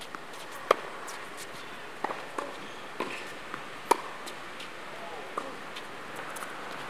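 Tennis ball struck by the near player's racket, two sharp pops about three seconds apart, with fainter pops of the opponent's shots and ball bounces in between during a baseline rally.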